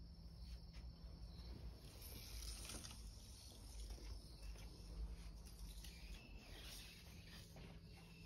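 Quiet room tone with a faint, steady high insect trill and a few soft rustles and taps.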